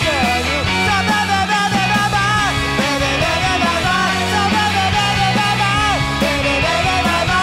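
Rock band recording: a melody line bending up and down in pitch over a steady bass line and drums.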